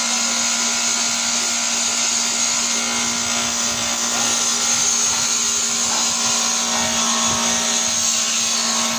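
Bench grinder running with a steady hum while a tool bit is ground on its abrasive wheel, steel hissing against the stone.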